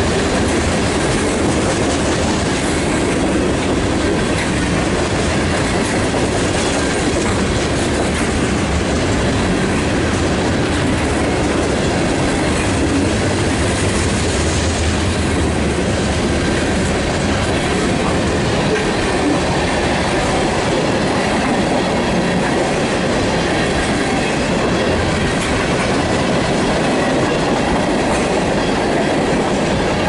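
Freight train's covered hoppers and tank cars rolling past at speed: a loud, steady noise of steel wheels running on the rails.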